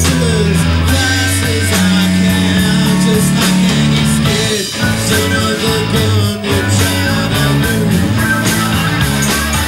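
A band playing a blues-rock song live, with a stepping bass line, guitar and drums, and no words sung.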